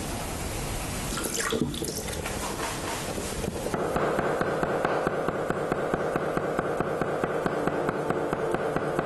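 Chinese cleaver tapping rapidly and evenly on a wet wooden chopping block as soft tofu is cut into hair-thin threads. The tapping sets in about four seconds in, after a steady hiss.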